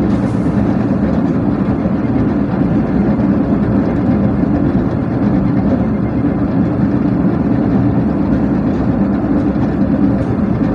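Steady low rumble and rattle of a passenger train coach running at speed on the rails, heard from inside the carriage.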